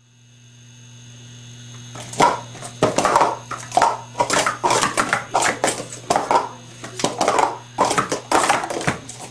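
Speed Stacks plastic cups being stacked and unstacked at speed by hand in a sport-stacking cycle: a fast, uneven run of clattering clicks and knocks starting about two seconds in, over a low steady hum.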